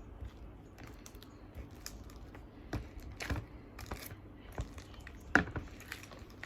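Sticky homemade slime being kneaded by hand and pulled off the sides of a bowl, making irregular little clicks and pops, the loudest about five seconds in.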